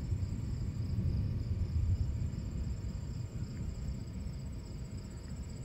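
Low rolling rumble of distant thunder, strongest in the first couple of seconds and slowly dying away. Over it, night insects trill steadily.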